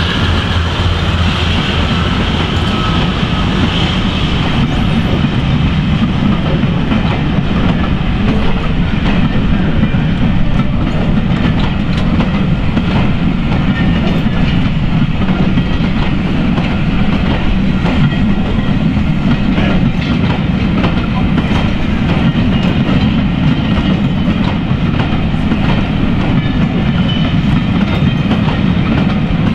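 Passenger coaches of a charter train rolling past close by, their wheels clicking steadily over the rail joints in a continuous clickety-clack. The drone of the Class 52 Western diesel-hydraulic locomotive, just gone by, fades out about a second in.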